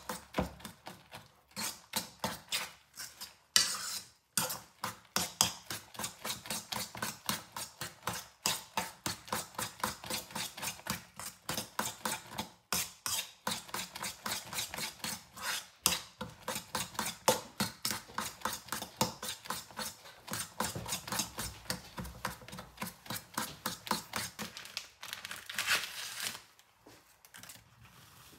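A hand squishing and kneading a wet mixture of raw minced beef, egg and chopped leek in a stainless steel bowl: quick squelching strokes, about three or four a second, with fingers tapping the metal bowl. It stops near the end.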